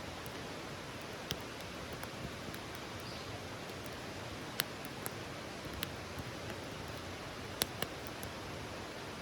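Wood campfire burning with a steady hiss, crackling with a few sharp pops now and then.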